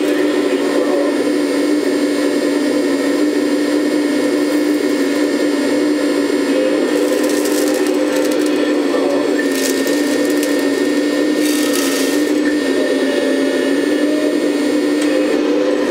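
Hydraulic pump of a 1/14-scale Lesu ET26L RC excavator running with a steady humming drone as the arm and bucket work. Several short bursts of rattling gravel come in the middle as the bucket tips stones into the dumper's bed.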